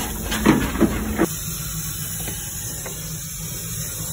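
Narrow-gauge steam locomotive hissing steam, with a few sharp metallic clanks in the first second or so.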